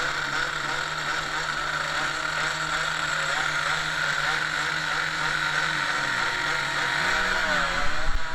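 Motorcycle engines running at a grasstrack race, their pitch wavering up and down as they rev, with a steady engine note underneath.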